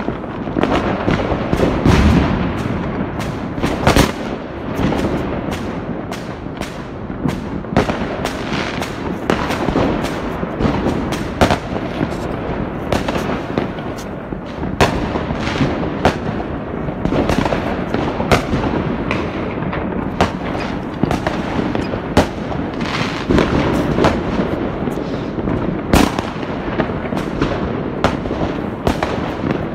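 Fireworks and firecrackers going off all over a city: a steady rumble and crackle of distant bangs, with sharper, louder reports every second or so.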